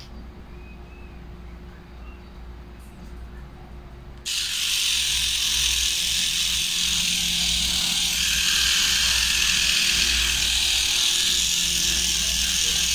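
Small pen-style electric pet trimmer switched on about four seconds in, then running steadily with a high hiss as it trims the hair on a Yorkshire terrier's ear.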